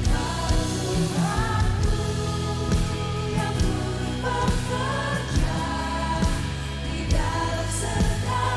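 Indonesian Christian worship song, sung by a group of voices over a band with drums keeping a steady beat.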